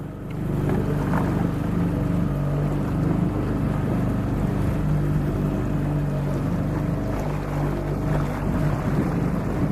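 Outboard motor running steadily at cruising speed, pushing an inflatable boat over choppy water, with wind buffeting the microphone.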